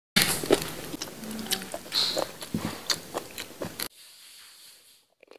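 Close-miked eating sounds: wet mouth clicks, biting and chewing as meat is bitten off a cooked goat head. The sounds cut off suddenly about four seconds in.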